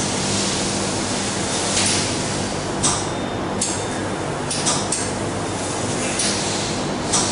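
CO2 laser cutting machine cutting thin sheet metal: a steady hiss of the cutting head's assist-gas jet over a low machine hum, with brief sharp crackles every second or so.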